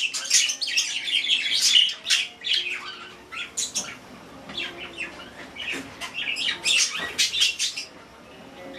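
Pet budgerigars chattering and chirping together, dense overlapping chirps and short squawks, busiest in the first couple of seconds and again about seven seconds in.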